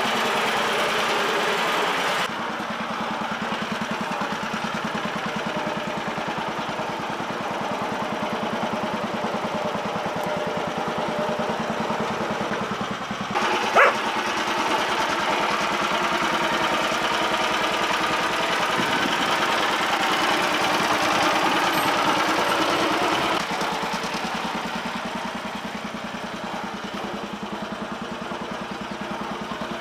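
Homemade garden tractor's engine running steadily, a little quieter in the last few seconds as the tractor pulls away. A single short, sharp sound rises above it about halfway through.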